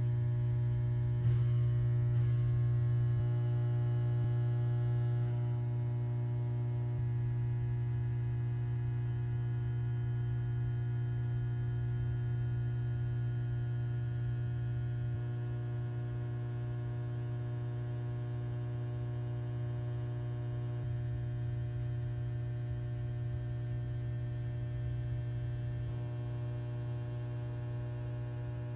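A steady low hum with a stack of fainter higher tones above it, unchanging throughout, with one faint click about a second in.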